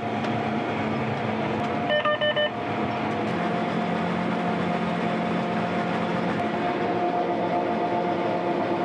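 Combine harvester running steadily, heard from inside the cab, with a short run of electronic beeps about two seconds in.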